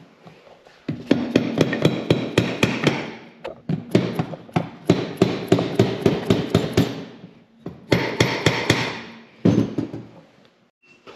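Hammer tapping repeatedly on a Kawasaki 340cc two-stroke twin snowmobile engine's crankcase to break the seal between the case halves. The strikes come quickly in three runs with short pauses between.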